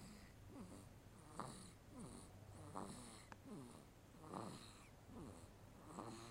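Baby snoring faintly in her sleep, a short snore with each breath about every one and a half seconds, each one dropping in pitch.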